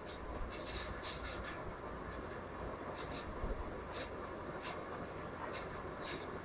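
Pen writing on lined paper: short, irregular scratching strokes, several a second, over a steady low background hum.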